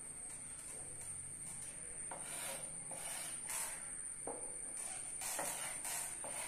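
Faint scratching of a series of short drawing strokes as a perpendicular bisector is being constructed, over a faint steady high whine.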